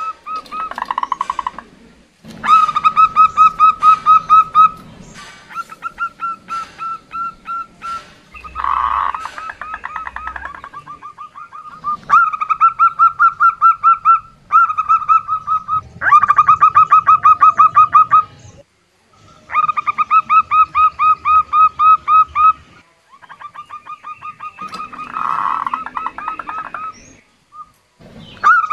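A female zebra dove (perkutut) calling in rapid runs of short, clipped cooing notes, about six a second. Each run lasts two to three seconds, with brief pauses between runs. It is the female's call used to draw male perkutut into calling.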